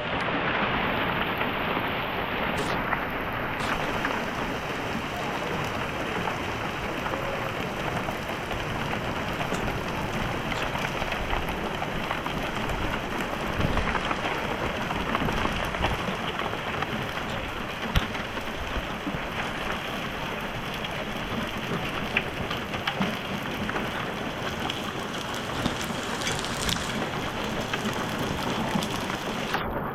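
Heavy rain pouring down steadily, a dense hiss of drops hitting the ground and surfaces.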